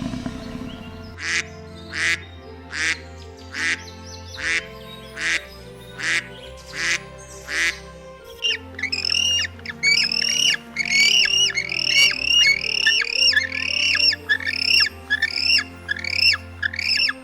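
Bird calls over background music. First comes a series of short harsh calls, about one a second. From about eight seconds in, a fast run of squawks follows, several a second.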